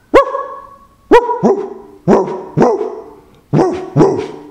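Dog barking: seven short, loud barks in quick succession, some in pairs, each dropping in pitch.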